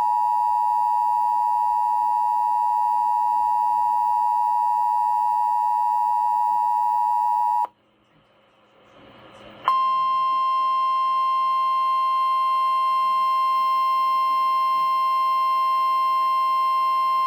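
Emergency Alert System warning tones broadcast for a winter storm warning: a steady two-tone attention signal for about eight seconds, which cuts off, a moment of faint hiss, then a single steady alarm tone that starts about ten seconds in.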